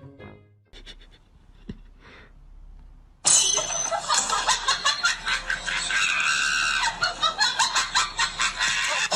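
A loud, shrill voice cuts in suddenly about three seconds in and goes on in rapid pulses, after a few seconds of faint sounds with a single click.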